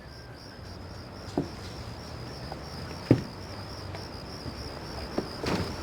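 Crickets chirping in a steady high trill, with a few soft knocks, the loudest about three seconds in.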